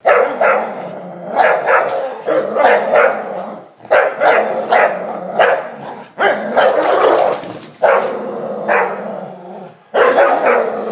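Entlebucher mountain dogs growling and barking while playing tug-of-war: a continuous play growl broken by frequent sharp barks, roughly one or two a second.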